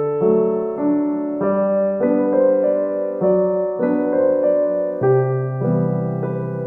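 Background piano music: soft chords and notes played at an even pace.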